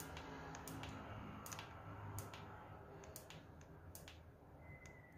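About a dozen faint, sharp clicks at irregular intervals over a low, steady hum.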